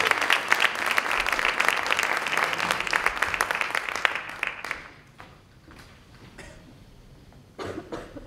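Audience applauding, many hands clapping together, then fading out about five seconds in.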